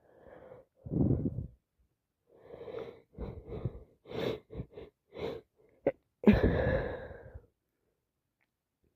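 A woman with a head cold sneezing: a run of short, catching breaths builds up over a few seconds, then one loud sneeze comes about six seconds in.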